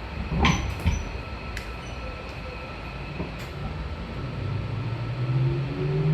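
Keio 8000-series train with PMSM IGBT-VVVF traction equipment: a few sharp clicks and knocks, then from about two-thirds of the way in the inverter and motor tone rising steadily in pitch as the train pulls away and speeds up.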